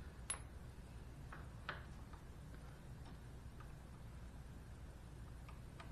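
Light metal clicks and ticks as a pin is worked by hand into the brake-side forward-control linkage: one sharper click just after the start, then scattered faint ticks.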